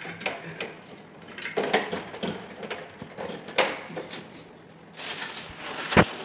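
Plastic parts of a split air conditioner's indoor unit being handled, with scattered clicks and knocks and a sharp thump about six seconds in.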